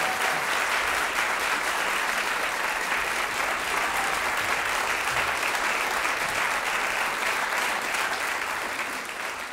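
Audience applauding steadily with dense clapping, tapering slightly near the end.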